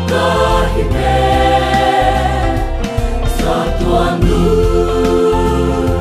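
Mixed choir of men's and women's voices singing together in harmony, with long sustained notes.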